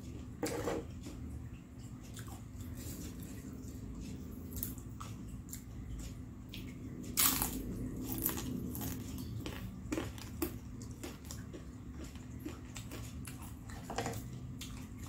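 Close-up crunching and chewing of crispy battered fried Indonesian snacks (gorengan), with scattered crisp crackles and a louder crunch about seven seconds in.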